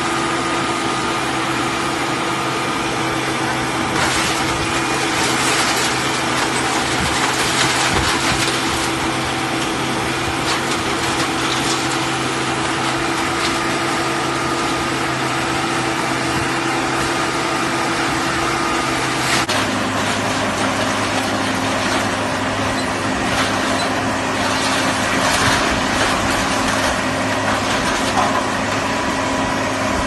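Engine and hydraulics of a mobile scrap-metal baler running with a steady hum, which drops to a lower pitch about two-thirds of the way through. Scrap metal clatters now and then as it is handled.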